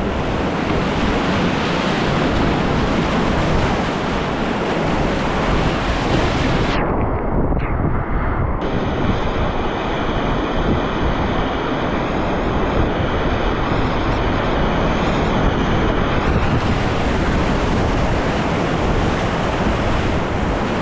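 Whitewater rapids rushing loudly and steadily. The sound goes briefly muffled about seven seconds in.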